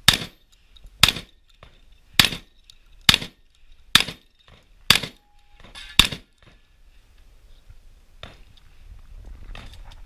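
Seven shotgun shots fired about a second apart, each a sharp blast with a brief ringing tail. After them come only softer clicks and scuffs.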